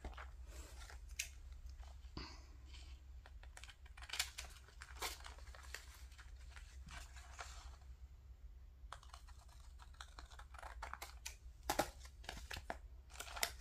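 Scissors snipping a paper doily and paper rustling and crinkling as it is handled, a series of short crisp snips and rustles, the loudest near the end.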